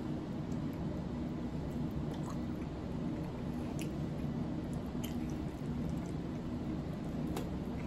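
A knife sawing through a tough steak on a plate, with a few faint scattered clicks and wet squishes, over a steady low background hum.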